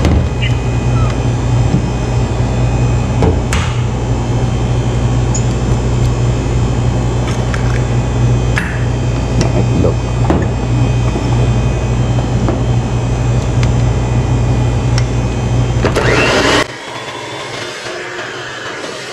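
Electric hand mixer running steadily with its beaters in thick cake batter in a stainless-steel bowl, with a few light clicks along the way; it switches off suddenly near the end, leaving a quieter steady background hum.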